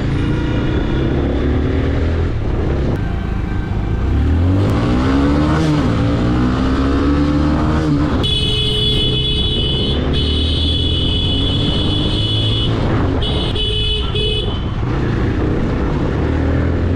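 Motorcycle engines running on the road, revving up and easing off several times. About eight seconds in, a high, steady tone comes in for about four seconds, then sounds again briefly.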